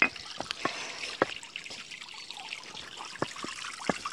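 Water trickling steadily in a small garden pond, with several sharp plinks of drops scattered through.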